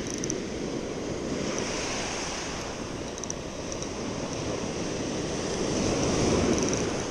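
Sea surf washing in against the rocky shore, a steady rush that swells as a wave comes in near the end, with some wind on the microphone.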